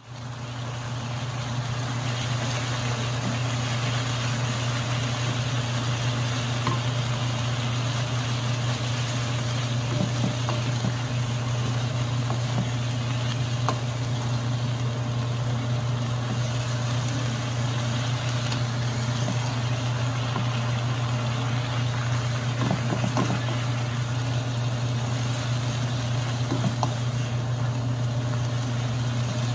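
Soybean sprouts and pork stir-frying in a wok: steady sizzling with occasional clacks and scrapes of wooden spatulas, over a loud steady low hum.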